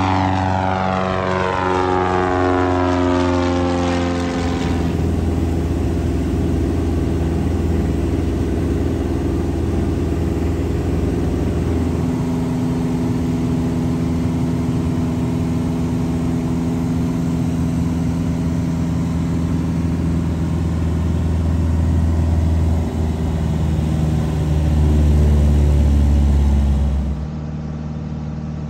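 Van's RV-15 prototype, a single-engine propeller airplane, flying past, its engine and propeller tone dropping in pitch over the first few seconds. A steady engine and propeller drone follows, swelling louder for a few seconds shortly before the end. Then it cuts suddenly to a quieter, steady drone.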